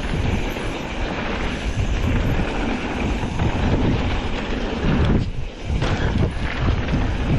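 Wind rushing over the microphone and mountain bike tyres rolling and rattling over a hard-packed dirt trail during a fast descent, with a brief lull about five seconds in.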